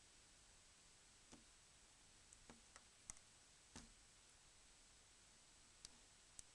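Near silence broken by several faint, sharp clicks and ticks of small tools against a Nokia E65 mobile phone's parts as its glued-in camera flex assembly is pried loose.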